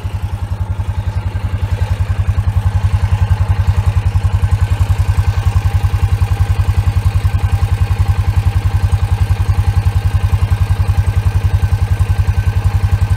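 Side-by-side UTV's engine idling close to its tailpipe, a steady fast putter of exhaust pulses that grows a little louder about two seconds in.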